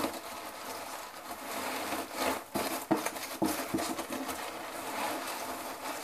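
Hands rummaging deep inside a cardboard box of packed plants: rustling and scraping of cardboard and packing, with a few sharper crackles between about two and a half and three and a half seconds in.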